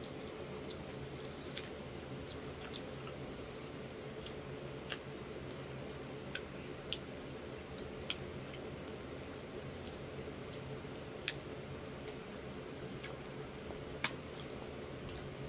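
Soft wet chewing and mouth clicks of someone eating creamy shrimp fettuccine Alfredo, with scattered small clicks over a steady low hum.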